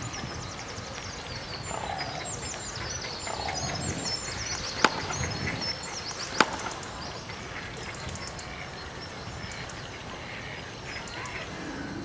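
Small birds chirping in a busy, high-pitched twitter that thins out after about seven seconds. Two sharp knocks, about a second and a half apart, stand out in the middle.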